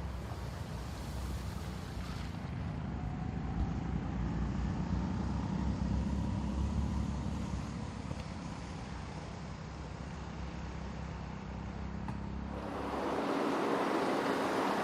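Dacia Duster 4x4's 1.6 naturally aspirated petrol engine and drivetrain running as the car drives, a low rumble with a faint whine that slowly rises in pitch. About twelve seconds in it cuts abruptly to a steady rushing hiss.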